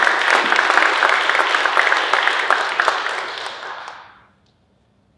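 Audience applauding, many quick hand claps together; the applause dies away about four seconds in.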